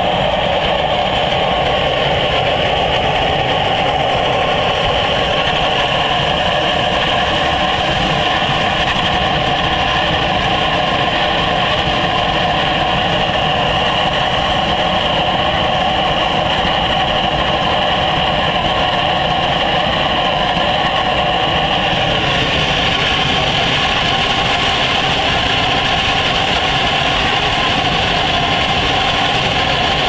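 Compressed-air waste-oil burner firing: a steady, continuous roar and hiss of the atomising air and flame, its hiss turning slightly brighter about twenty-two seconds in.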